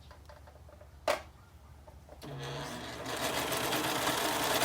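A single sharp click about a second in. Then a serger (overlock sewing machine) starts up and runs, growing louder after a moment into fast, steady stitching.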